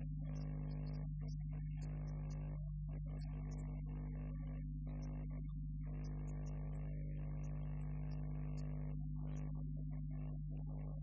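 Steady electrical hum with a strong low tone, and over it a choppy, garbled mid-range sound that cuts in and out every fraction of a second.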